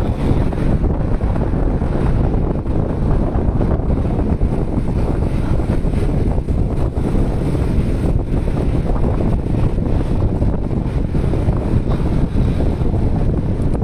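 Steady wind rumble on the microphone from riding along a street, mixed with the road and engine noise of the moving vehicle.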